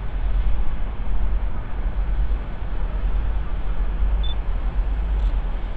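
Steady low rumble of outdoor railway-station background noise, with one short high beep about four seconds in.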